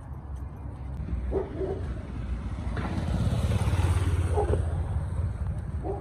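A motor vehicle passing close by, its rumble building to a peak about four seconds in and then fading. Three short animal calls sound over it.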